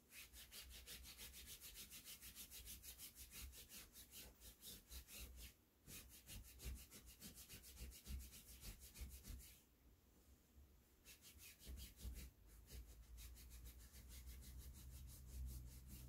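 A towel scrubbed hard back and forth over a cotton bed sheet, several quick strokes a second, to clean a soiled spot. It comes in bouts with short pauses and is faint.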